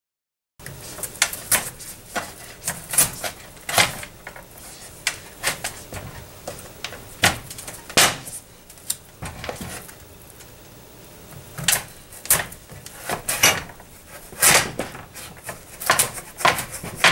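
Chef's knife cutting through a firm raw carnival squash on a cutting board: a run of irregular sharp knocks as the blade chops through and hits the board.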